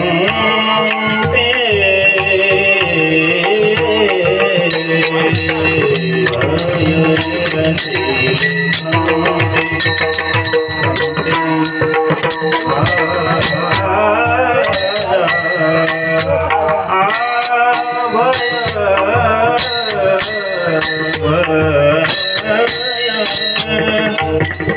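Marathi devotional kirtan music: voices singing a drawn-out, ornamented melody over a mridang drum and the steady clash of small hand cymbals (taal).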